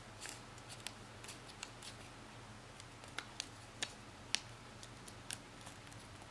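Faint paper crackles and small clicks as a thin strip of origami paper is rolled tightly between the fingers into a stem, with a few sharper clicks in the second half, over a low steady hum.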